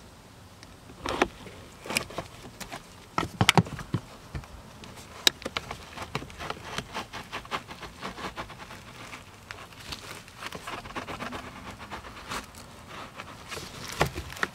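A used car cabin air filter being slowly pulled out of its plastic housing, making irregular scraping, rustling and crackling, with a few sharper cracks in the first five seconds. Dry leaf debris is caught in the filter's pleats.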